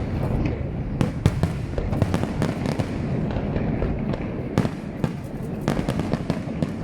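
Fireworks display: shells bursting with sharp bangs, several in quick succession, over a continuous low rumble and crackle of further bursts.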